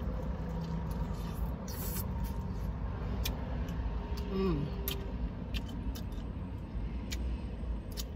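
Close-up chewing of fried chicken, with scattered sharp mouth clicks and smacks, over the steady low rumble of a car interior. A short hum falls in pitch about halfway through.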